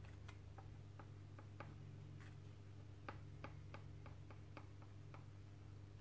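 Faint, irregular light clicks, about two or three a second, over a low steady hum.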